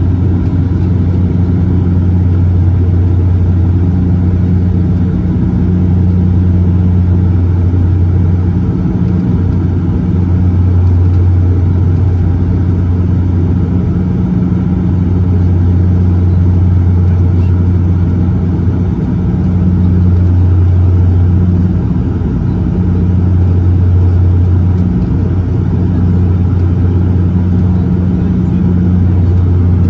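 Inside the cabin of a De Havilland Canada Dash 8-400 in flight: the steady low drone of its Pratt & Whitney PW150A turboprops and six-bladed propellers, a loud hum that wavers slightly in strength every few seconds.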